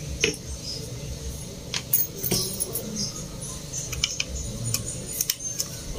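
Scattered small clicks and light taps over a faint low hum: metal hand tools such as multimeter probes and tweezers being lifted off a phone circuit board and handled on a repair bench.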